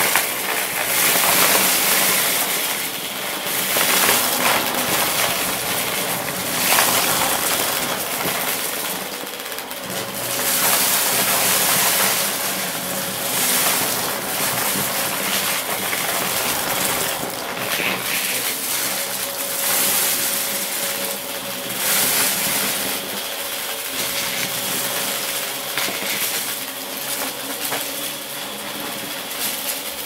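Dyson ball upright vacuum cleaner running with a steady motor hum while sucking up a pile of small hard plastic bits and glitter, with a dense crackling rattle of debris going up the machine that swells and fades as the head passes over the pile.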